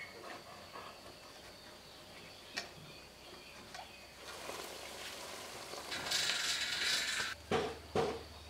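Workshop handling noises from cleaning around a tractor's fuel filter head with a cloth. There is faint rubbing and a sharp click, then a short hiss about six seconds in that stops abruptly, and two knocks near the end.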